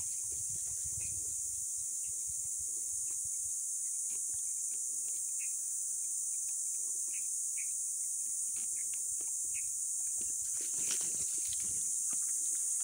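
Steady high-pitched insect drone from the creekside brush, with scattered short chirps over it and some rustling of leaves near the end.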